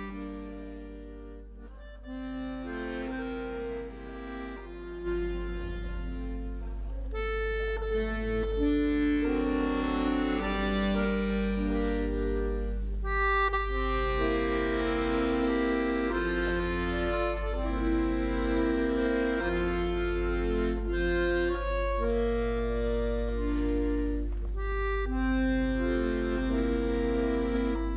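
Slow instrumental music of sustained, overlapping chords with a reedy tone over a steady low note, growing louder about five seconds in.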